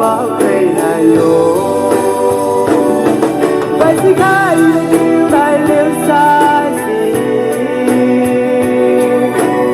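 A song playing, instruments with a wavering melody line over them.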